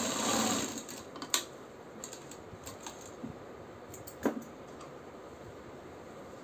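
Umbrella sewing machine stitching for under a second, then stopping. Then a few sharp, separate clicks and light handling noise as the fabric is drawn out from under the presser foot.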